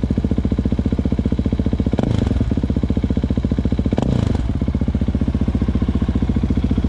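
Husqvarna 701 Supermoto's single-cylinder engine idling through an aftermarket Akrapovic slip-on exhaust just after start-up, with two short throttle blips about two and about four seconds in.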